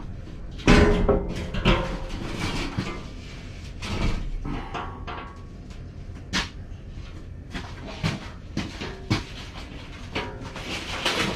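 A string of scattered knocks and clunks, like objects being handled and set down, the loudest about a second in.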